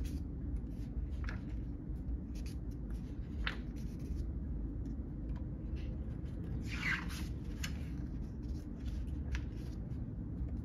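Glossy pages of a photobook being turned and handled: short papery swishes, the longest and loudest about seven seconds in as a page is flipped over. A steady low hum runs underneath.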